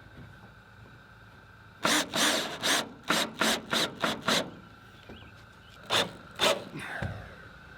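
Hand tool scraping in quick back-and-forth strokes: about seven strokes in the space of two and a half seconds, a pause, then two more.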